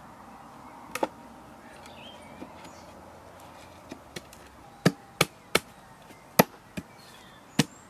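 Sharp wooden knocks as the timber sides of a National beehive brood box are tapped together into their grooves to close the joints: one knock about a second in, then a run of about seven in the last three seconds, two or three a second.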